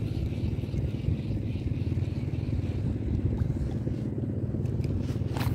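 Wind buffeting the microphone, a steady low rumble, with a short sharp click near the end.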